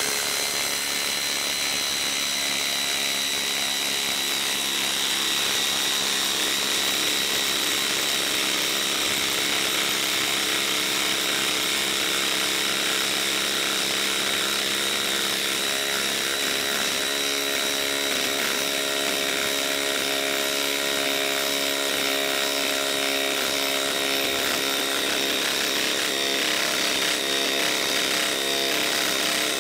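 DeWalt DCF887 XR brushless impact driver hammering without a break on its top speed setting as it drives a 10-inch by half-inch lag screw into a log. Its note shifts slightly about halfway through.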